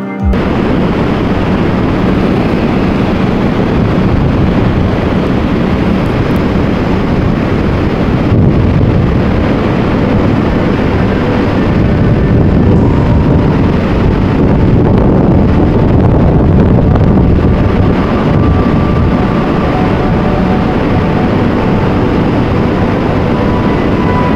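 Waterfall rushing: the falling water of Niagara Falls gives a loud, steady, unbroken rumble with no rhythm.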